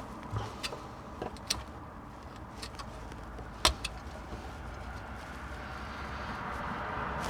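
Scattered small clicks and taps of heater parts being handled during reassembly, with one sharper knock about three and a half seconds in, over a faint steady low hum.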